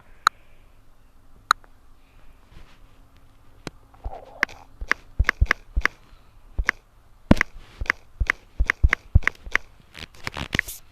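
A run of sharp clicks and taps, a few at first, then coming several a second from about four seconds in, thickest near the end.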